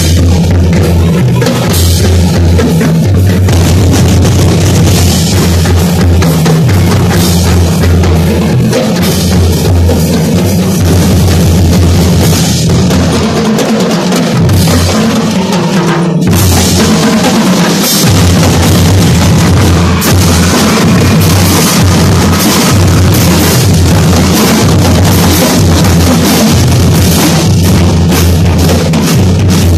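Drum and lyre band playing loudly: snare drums and bass drums beating a steady marching rhythm, with keyboard percussion among them. The bass drums drop out briefly about halfway through, then come back in.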